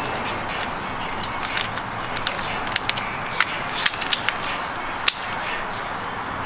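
Scattered light metallic clicks and clinks as a timing chain and its guides are worked onto the cam sprockets of a Subaru FA20 boxer engine, over a steady background hiss. The clicks come thickest around the middle, with one sharper click near the end.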